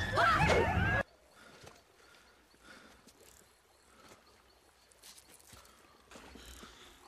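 Pack of dog-like film creatures, the viperwolves, yelping and whining, cut off suddenly about a second in. Then a quiet night jungle with only faint rustles and soft ticks.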